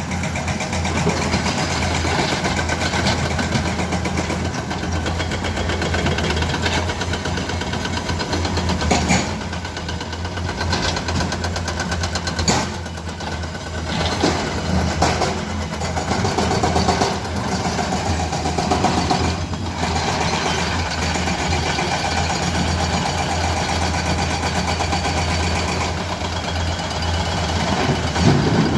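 Heavy construction machine's diesel engine running steadily with a low hum, with a few sharp knocks of metal partway through.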